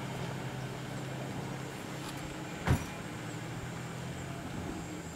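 Steady low hum of an idling vehicle engine, with a single sharp knock a little past halfway.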